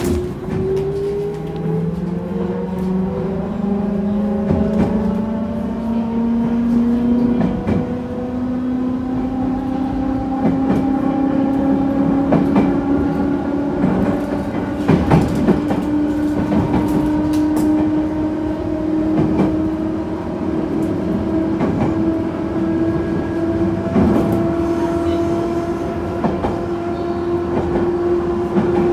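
JR Central 211 series 5000 subseries electric train pulling away from a station: the motor car's traction motors and gears whine, rising in pitch as it accelerates, quickly at first and then more slowly. Sharp clicks from the wheels over rail joints come now and then.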